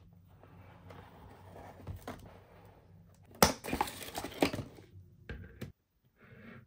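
Toy packaging handled and pulled apart, rustling cardboard and plastic, with a loud burst of crackling and crinkling about three and a half seconds in. It cuts off suddenly near the end.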